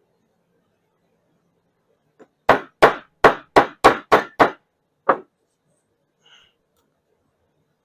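Hammer striking a punch in quick blows to drive a part out of a heated Zenith carburetor body: seven sharp strikes about three a second, then one more a moment later.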